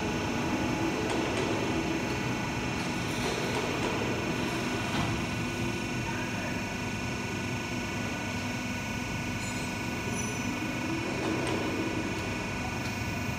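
Hydraulic power unit of a plate-flipping machine running, a steady machine hum with several constant tones, while its hydraulic cylinders slowly tilt a large steel frame up.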